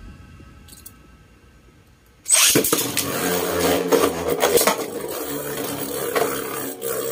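Two Savior Perseus Beyblade Burst tops, a Takara Tomy original and an MQ brand copy, launched together a little over two seconds in. They then spin in a plastic stadium, a steady whirring broken by repeated sharp clacks as they collide.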